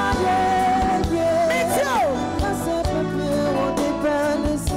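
Live gospel performance: a woman singing into a microphone over a band of keyboards, electric bass and drums. About two seconds in, her voice makes a long downward slide.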